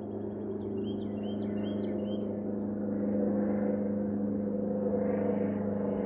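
A steady low mechanical hum that grows louder over the first three seconds and then holds. A few short high chirps, from a bird, come about one to two seconds in.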